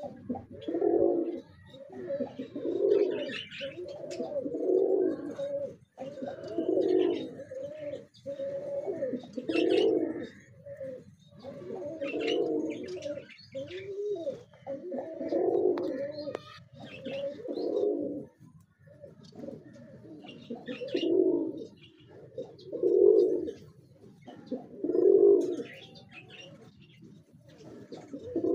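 White domestic pigeons cooing, one coo after another roughly every two seconds, with scattered high chirps above them.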